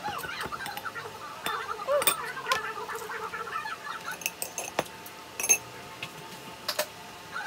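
Sharp clinks of cutlery and dishes at a meal table, the loudest about five and a half seconds in, over repeated short wavering bird calls in the background that are busiest in the first half.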